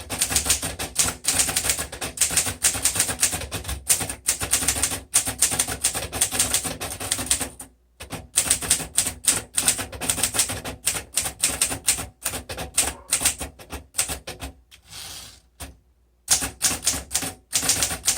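1954 Underwood Quiet Deluxe manual portable typewriter being typed on in quick runs of keystrokes. Typing pauses briefly about eight seconds in, and again for a longer break around fifteen seconds in that holds one short, softer noise, before the keystrokes start again.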